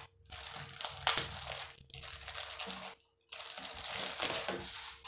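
Clear plastic wrapping crinkling as hands pull it off a folded cloth dish towel, in two stretches with a brief pause about three seconds in.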